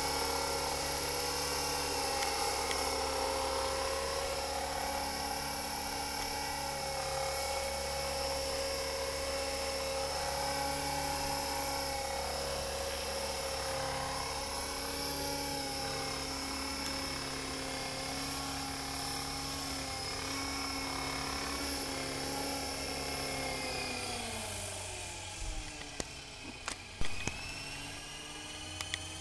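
Align T-REX 450 electric model helicopter hovering: a steady high whine from the motor and gears over the hum of the rotor. About 24 s in, as it comes down onto a slab, the pitch sinks. A few sharp knocks follow, and near the end the pitch starts to climb again.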